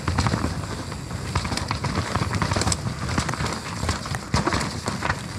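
Nukeproof Mega full-suspension mountain bike riding down a wet, rough trail: a steady rumble of tyres on dirt with rapid clicks and rattles from the bike as it runs over the rough ground.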